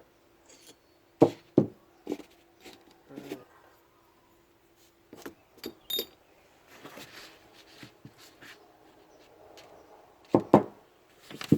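Metal transmission parts, shift forks, being handled: scattered sharp clicks and knocks, the loudest about a second in and two more near the end.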